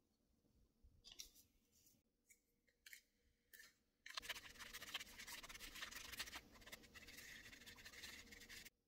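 Small plastic spoon stirring and scraping around a plastic candy-kit tray, mixing powder and water into a red syrup. A few short rustles come first, then steady, rapid scraping begins about four seconds in and stops abruptly near the end.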